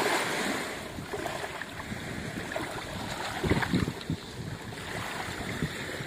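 Surf washing up the beach at the water's edge, with wind on the microphone; the wash is loudest right at the start, then settles to a steady hiss.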